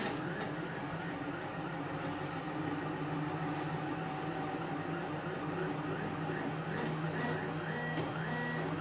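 3D printer running: its stepper motors whine in quick, short tones that slide up and down in pitch, over a steady low hum.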